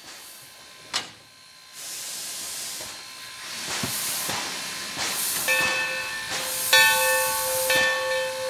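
Steam locomotive No. 3025 venting steam in hissing bursts, with a sharp clank about a second in. From a little past halfway its steam whistle sounds, a steady several-note tone that swells twice.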